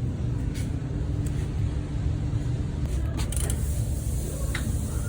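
Steady low rumble of road and tyre noise heard inside a moving car. The earlier rear wheel bearing noise is gone now that the hub bearing has been replaced. A few light clicks come about three seconds in.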